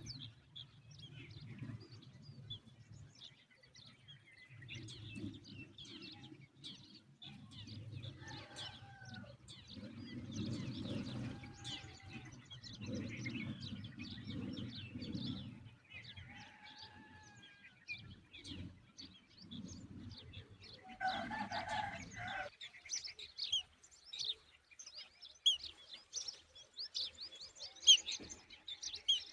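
Small birds chirping and calling, with a few short gliding whistled calls and a louder call a little past the middle; the chirping grows busier near the end. A low rumble in the background comes and goes, then stops about two-thirds of the way through.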